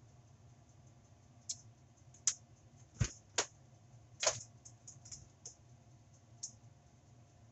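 Kitchen handling noises: a scattered series of about ten short clicks and knocks over some five seconds, the loudest about three seconds in and again a little after four seconds.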